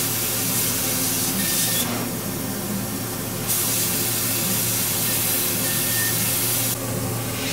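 Laser engraving machine running with a steady hiss over a low machine hum. The hiss drops away twice for a second or so. A faint thin high squeal shows briefly, the squeal this laser gives only when its beam strikes material, which the owner ties to old distilled water in the chiller.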